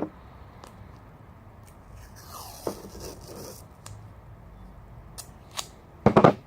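Small handling sounds while an old wiring harness is labelled and tagged: a scraping rustle, scattered light clicks, and a short cluster of sharp snips or clicks near the end, the loudest part.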